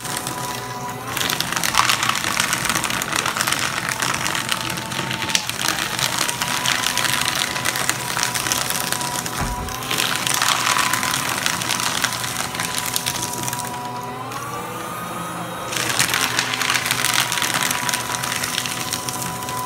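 Royal 1212X 12-sheet crosscut paper shredder running while sheets are fed through. The cutters make a dense crunching rustle in several passes with brief pauses. In a longer pause past the middle, the motor hum rises in pitch as it runs free, then drops again when the next sheets bite.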